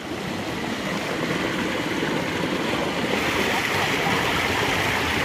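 River water rushing steadily, growing a little louder and brighter about three seconds in.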